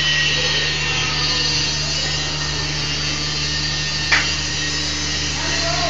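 Steady machine hum of a welding workshop, with one sharp knock about four seconds in as a steel piece is handled.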